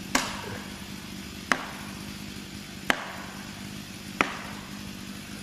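Maul striking a steel felling wedge driven into the tree's cut: four sharp, evenly spaced blows, about one every second and a half.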